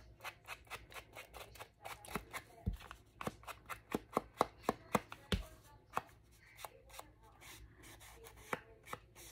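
Ink blending tool dabbed and rubbed along the edges of a paper tag on a tabletop: a run of irregular taps, several a second, thickest in the middle and thinning toward the end.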